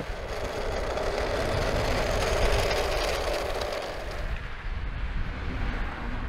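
A car driving past at speed: road and engine noise that swells toward the middle and fades away after about four seconds.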